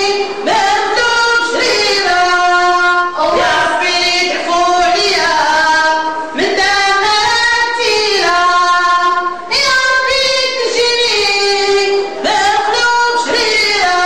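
A high solo voice singing a slow melody, holding long notes of one to three seconds and sliding in pitch between them.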